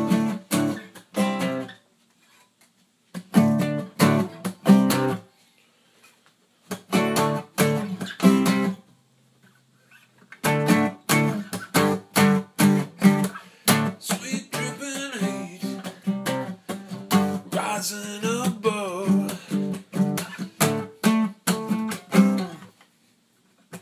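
Luna Celtic Horse acoustic guitar being strummed. It plays three short bursts of chords with pauses between them, then settles into steady strumming from about ten seconds in.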